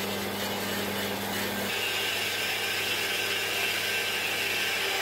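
Electric horizontal metal-cutting bandsaw running with its blade cutting through steel angle iron: a steady motor hum under the hiss of the blade in the cut, which turns brighter and higher about two seconds in.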